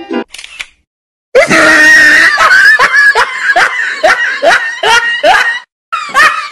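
A loud scream that starts suddenly after a second of silence and breaks into a run of short, shrieking laugh-like bursts, about three a second.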